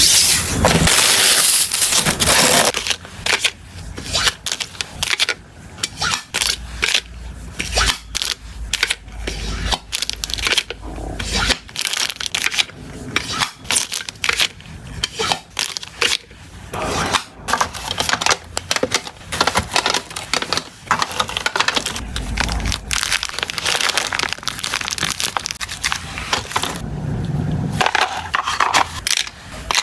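Packaging being handled: plastic and paper crinkling and crackling, with many small clicks and taps.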